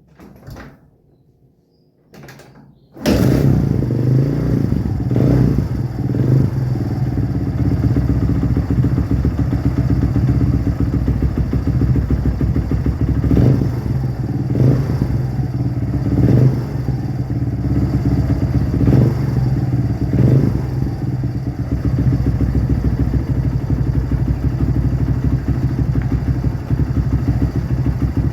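Kawasaki Barako 2 motorcycle's single-cylinder engine starting about three seconds in, after a few faint knocks, then running steadily with a few short louder moments.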